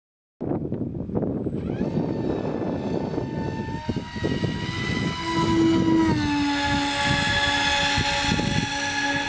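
Electric motor and propeller of a homemade RC flying model running in flight: a steady whine over a rough low rumble. The sound cuts in suddenly about half a second in, the whine rises in pitch over the next second or so, and it steps down a little about six seconds in.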